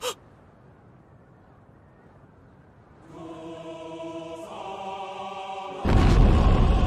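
A faint low rumble, then from about three seconds in a wordless voice holding choir-like sung notes that move to a new pitch once. Near the end a loud, deep, thunder-like boom cuts in and keeps going.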